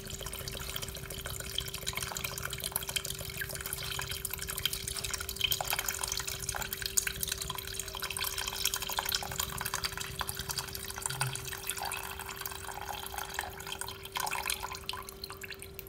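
Coconut water pouring in a steady stream into a stainless steel pot of browned pork pieces, trickling and splashing, the stream thinning near the end. A faint steady hum runs underneath.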